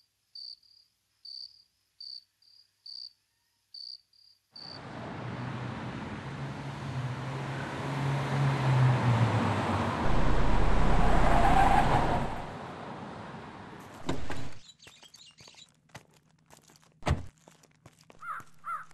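Crickets chirping in short, evenly spaced chirps, about two a second. After about four and a half seconds this gives way to a small Hyundai hatchback driving up a dirt road: a rising noise of engine and tyres on gravel with a low rumble, loudest as it pulls up close, then dying away. After that come scattered clicks and one sharp knock.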